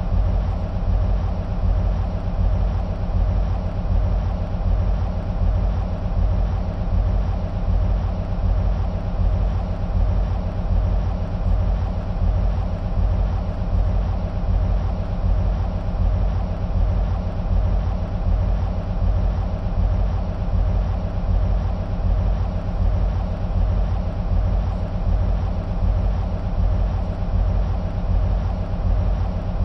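EMD SW1500 switcher locomotives' 12-cylinder two-stroke diesel engines idling steadily, with an even low throb.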